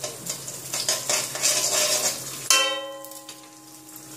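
A metal spatula stirs cumin seeds and urad dal sizzling in hot oil in a steel kadhai, scraping and hissing. About two and a half seconds in comes a sharp metallic clank that rings on for about a second.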